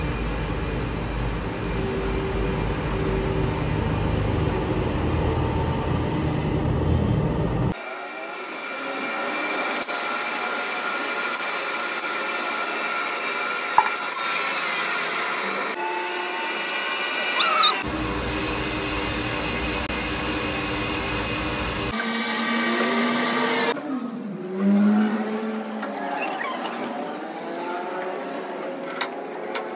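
Metal lathe running as it turns a steel axle shaft, heard in several joined takes. The sound changes abruptly about eight, eighteen and twenty-two seconds in, switching between a low rumble and steady high tones.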